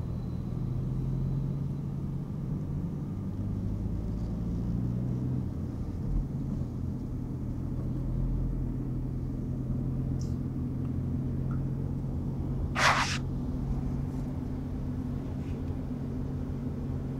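Car engine and road noise heard from inside the moving car's cabin, a steady low drone. About 13 seconds in there is one brief noisy burst, louder than the drone.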